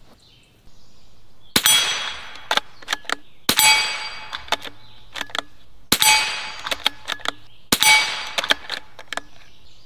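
Four subsonic .22 LR rifle shots, each met at once by the ringing clang of a steel dueling-tree paddle that fades over about a second, with lighter metallic clicks between shots. The paddles are hit but do not flip over.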